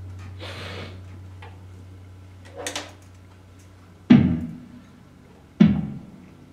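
The last low note of a band's guitars and keyboard ringing out and fading, cut off about four seconds in. Two sharp knocks follow, about a second and a half apart.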